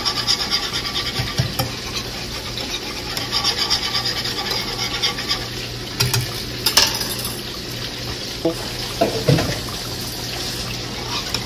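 Wire whisk stirring thick gravy in a metal skillet: a quick, rhythmic scraping against the pan, with a few sharp clicks of the whisk on the metal.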